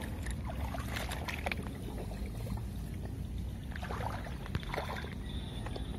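Rustling and soft splashy sounds from wet, weedy swamp ground over a steady low rumble, in two clusters: about a second in and again about four seconds in.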